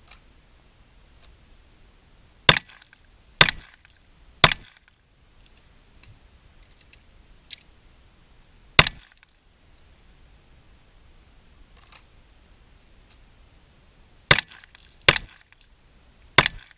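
Glock 19 9mm pistol fired seven times in a drill. There are three quick shots about a second apart, then a pause, a single shot, a longer pause, and three more quick shots near the end.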